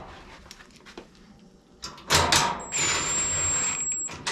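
Power driver running a screw in for about two seconds, a steady high motor whine over a rattling hum, starting about two seconds in after a few clicks.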